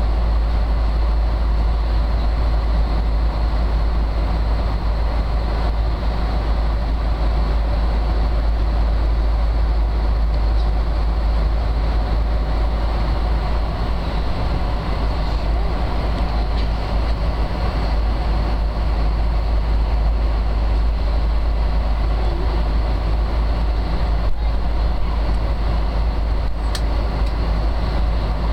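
Steady cabin noise of an airliner in flight: an even drone of engines and rushing air with a heavy low rumble, unchanging throughout.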